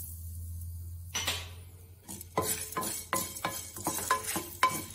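Wooden spatula stirring and scraping whole peppercorns, cumin seeds and garlic cloves as they dry-roast in an unglazed clay pan, with repeated knocks of the spatula against the pan that start about a second in and come several times a second. A low steady hum underlies the first second.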